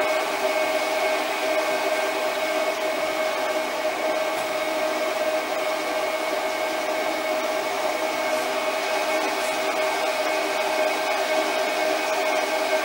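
Sieg SC4 benchtop lathe running with its power feed engaged: a steady, unchanging motor and gear whine.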